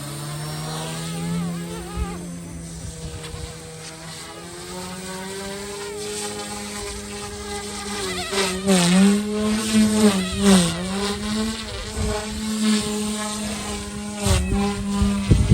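GooSky S2 Legend RC helicopter's direct-drive brushless motors and rotors whining in flight. The pitch holds steady, then dips and recovers several times in the second half as the throttle and load change during manoeuvres.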